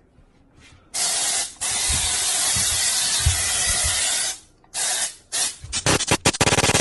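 Aerosol spray can being sprayed: one long hiss with a brief break, a shorter hiss, then a rapid run of quick short squirts that come faster and faster.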